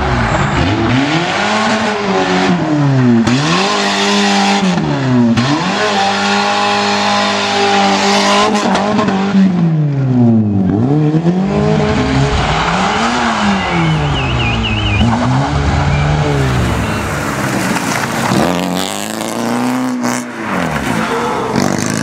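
Rally car engine worked hard, its revs climbing and dropping sharply over and over as it is driven flat out through the gears and lifts for corners.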